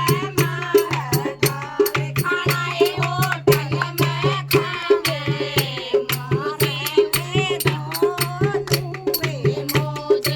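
Haryanvi folk song: a voice singing a wavering melody over a steady low drone, with a quick, even percussion beat of sharp clicks.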